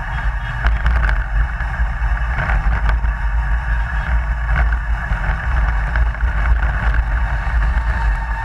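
Onboard sound of the Geec eco-marathon car driving at about 30 km/h: a heavy low rumble of road and wind noise under a steady high whine, with a few light knocks as it runs over the track surface.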